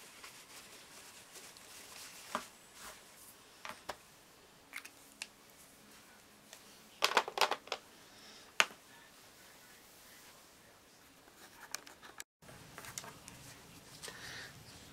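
Light clicks, taps and rustles of craft supplies being handled: a clear acrylic stamp wiped with a paper towel and a small plastic ink pad picked up and its lid snapped, with the sharpest clicks a little past halfway. Near the end a faint steady hum begins.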